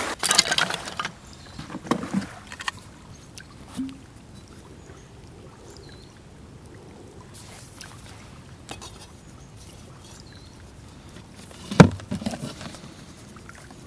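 Wooden utensils and a bark container being handled: scraping and knocking of a wooden spoon at the start, and one sharp wooden knock near the end as a wooden lid is set on the bark box, followed by a few smaller knocks. Between them, water laps quietly at the shore.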